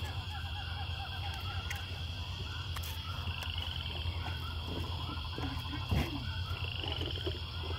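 A background chorus of short, rapidly repeated animal calls over a steady low hum, with a couple of faint clicks.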